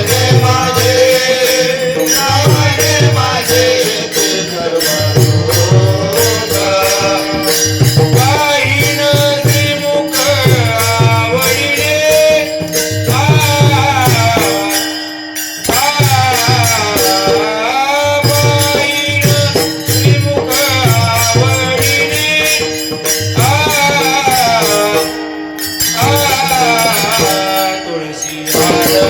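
Marathi Varkari devotional singing in a traditional melody by a male voice with long gliding phrases. A mridang (pakhawaj) plays steady rhythmic strokes beneath it. Throughout there is a sustained drone and a bright metallic jingling that keeps time, briefly thinning twice.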